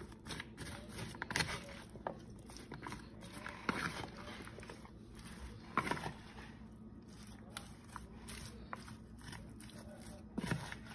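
A spatula stirring shredded sweet potato in a thick, sticky cornstarch batter in a plastic bowl: irregular wet squelches, scrapes and light clicks against the bowl.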